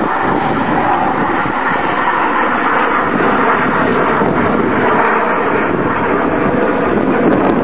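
Chinook tandem-rotor helicopter in flight, its rotors and engines making a loud, steady noise.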